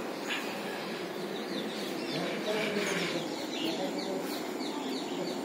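A bird calling over and over, a quick run of short, high, downward-sliding chirps several times a second, starting about a second and a half in, over steady background noise.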